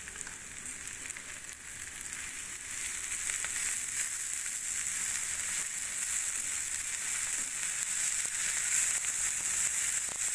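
Fried noodles sizzling in a nonstick frying pan as they are stir-fried and turned with a wooden spatula, with faint scrapes and taps of the spatula. The sizzle grows louder over the first few seconds, then holds steady.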